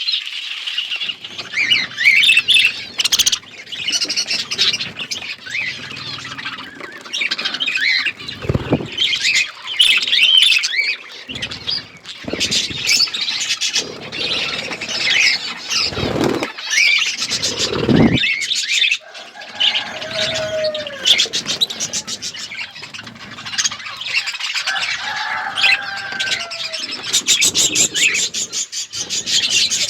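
A flock of budgerigars chirping and chattering nonstop in many overlapping high warbles, with a few short bursts of wing flapping.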